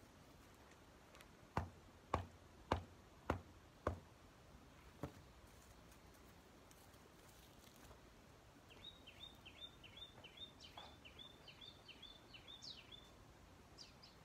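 Six sharp knocks a little over half a second apart, the last one weaker, from a hand tool striking the soil of a garden bed. Later a small bird sings a quick run of repeated high chirps, about four a second, for around four seconds.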